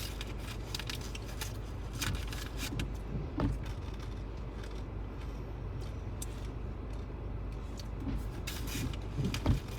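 Steady low rumble of a car's engine and tyres, heard from inside the cabin while driving, with scattered sharp clicks and knocks at irregular intervals.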